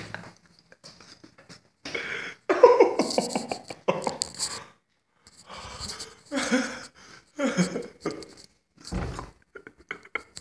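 A man laughing in several loud bursts, with short pauses between them.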